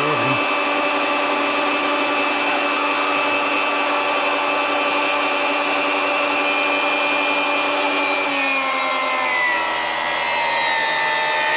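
Milwaukee M18 cordless table saw ripping a rough-sawn 2x4 stood on edge, with the blade at full height. Its motor whine is steady at first; from about eight seconds in the pitch drops as the blade bites into the wood and the motor slows under load without stalling.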